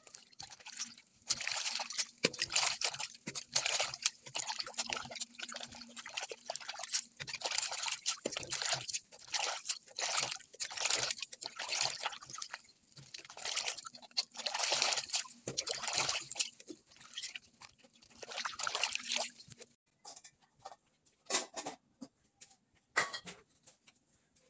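Water sloshing and splashing in irregular bursts as heads of bok choy are swished and rubbed by hand in a basin of water. The washing stops about 20 seconds in, leaving a few scattered light clicks and drips.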